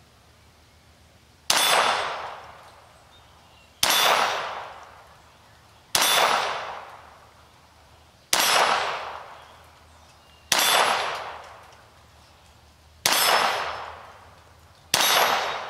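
Seven shots from a .22 LR semi-automatic pistol, a Ruger 22/45, firing Federal Premium Gold Medal Target rounds, fired one at a time roughly two seconds apart. Each is a sharp crack that fades over about a second.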